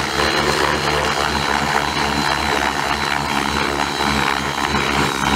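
Align T-Rex 600E electric RC helicopter flying a low, fast pass: a steady high whine from the motor and gears over the noise of the main rotor blades.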